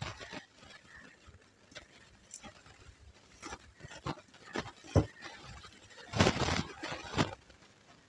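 Eating sounds of rice and curry eaten by hand from a steel plate: fingers mixing rice and chewing, heard as scattered wet clicks and smacks, with a louder cluster of them about six seconds in.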